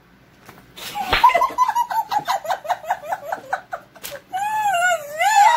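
A single open-hand slap with a baby-powdered hand about a second in, followed at once by rapid 'ha-ha-ha' laughter, about five bursts a second, from women. Near the end comes a long high squealing laugh that glides up and down.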